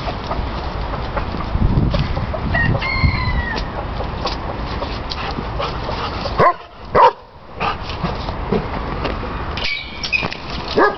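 Bantam chickens clucking and calling, with a couple of loud calls about six and a half seconds in, over a steady background noise. Near the end a metal gate latch clicks and rattles.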